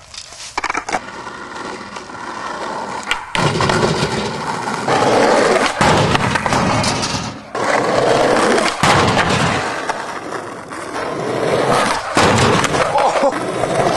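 Skateboard wheels rolling loudly over pavement in long stretches, broken by several sharp clacks as the board pops and strikes.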